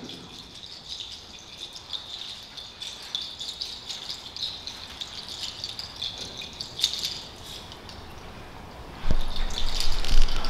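Small rattles jingling lightly in quick, uneven ticks that fade out after about seven seconds. About nine seconds in comes a low thump, followed by handling noise on a microphone.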